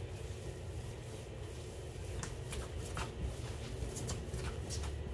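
Hands kneading a soft, wet bread dough on a granite countertop: soft squishing and pushing, with a run of short sharper pats and slaps in the second half, over a steady low hum.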